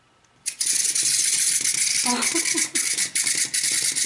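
Small plastic bird-shaped toy rattle shaken steadily for over three seconds, starting about half a second in, with a few pitched notes sounding about halfway through.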